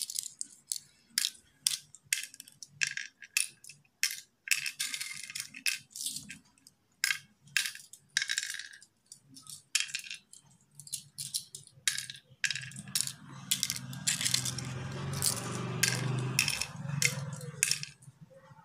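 Cowrie shells dropped one by one into the pits of a wooden pallanguzhi board, a string of sharp clicks about two a second, with shells rattling together in the hand. About two-thirds of the way in, a denser, muddier rumble runs under the clicks for a few seconds.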